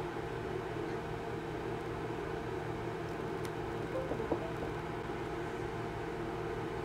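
Steady hum and hiss of background noise, with one short knock a little after four seconds in.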